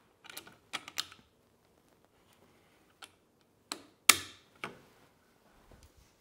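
A handful of sharp clicks and taps from a handle and its fittings being handled and fitted onto the top of a transducer pole, spread out, the loudest about four seconds in.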